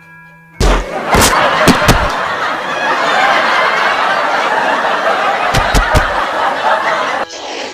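Canned audience laughter, a laugh-track sound effect, starting about half a second in and running for about seven seconds. Several sharp thumps land in it, a cluster in the first two seconds and another near the end.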